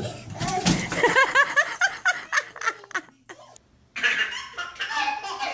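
Laughter: a run of quick, high-pitched laughs, breaking off about three and a half seconds in, then more laughing.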